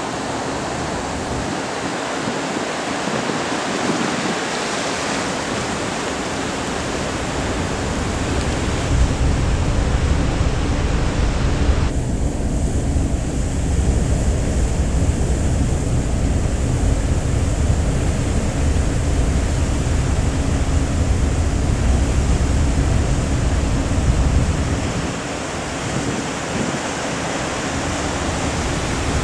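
Wind buffeting the microphone over the steady rush of sea water past a ferry's hull, with a low steady hum underneath. The hiss thins suddenly about twelve seconds in.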